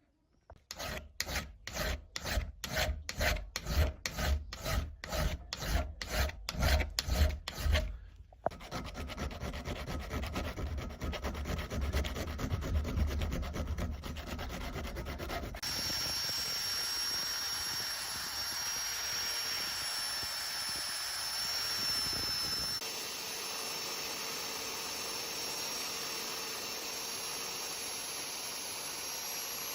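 Rhythmic back-and-forth abrasive strokes on metal, about three a second, like hand filing, turning into faster continuous rubbing. About halfway through, an electric tool starts and runs steadily with a high whine and a hiss of abrasion.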